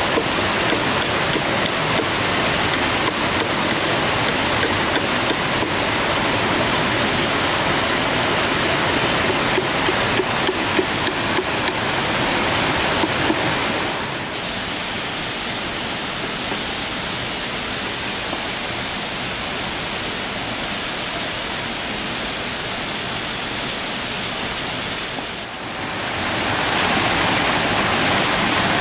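Small waterfall and stream rushing steadily, with quick clicks and scrapes of a knife shaving a green bamboo tube through the first half. The water noise drops slightly about halfway through and swells louder again near the end.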